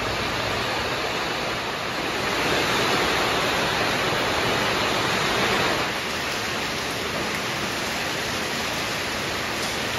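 Heavy rain pouring down: a steady hiss that swells a little between about two and six seconds in.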